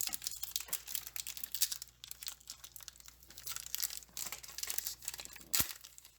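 Pokémon Vivid Voltage booster pack's foil wrapper crinkling and tearing as it is opened and handled, with a single sharp snap about five and a half seconds in.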